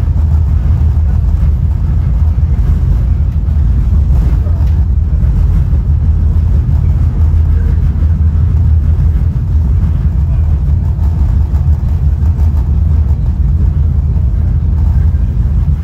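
Steady low rumble heard inside a Caltrain Gallery passenger car of a diesel-hauled train running along the track: wheels on the rails and the moving car body.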